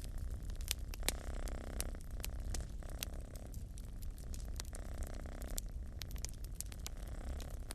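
A cat purring, a steady low rumble that swells and eases with its breaths, over a wood fire crackling with frequent sharp pops.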